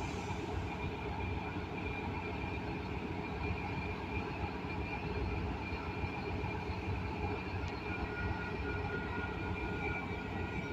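Commuter train running with a steady low rumble and a steady high whine; a second, lower whine joins near the end.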